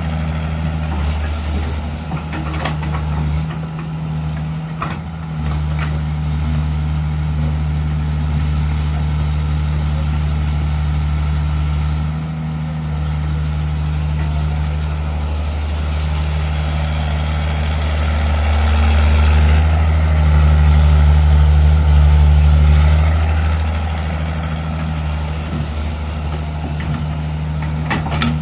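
Heavy diesel engine of construction machinery running steadily at a low hum, growing louder for a few seconds about two-thirds of the way through as it works harder. A few short knocks sound a few seconds in.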